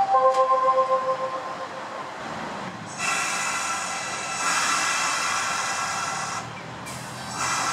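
A Tosa Electric Railway streetcar standing at a stop with its on-board equipment running. A short steady electronic chime fades out in the first two seconds. A hissing rush over a low hum sets in about three seconds in and lasts about three and a half seconds, and a shorter rush comes near the end.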